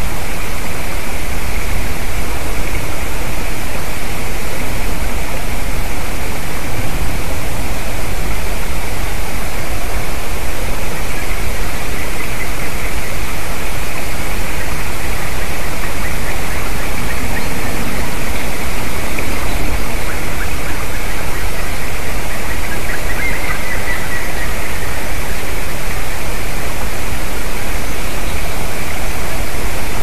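Steady, loud rushing hiss that does not change, with a faint short bird call barely showing above it about three-quarters of the way through.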